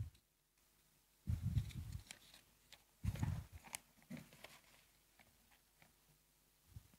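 Handling noise on a lectern microphone: two dull bumps with rustling, about a second and a half and three seconds in, then a few faint clicks and rustles, as papers are arranged on the lectern.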